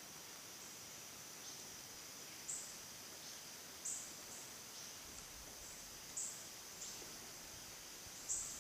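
Insect chorus: a steady high-pitched drone with four short, louder high chirps at uneven spacing.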